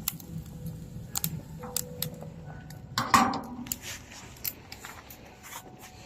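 Scattered clicks and knocks of small objects being handled, with one louder clatter about three seconds in.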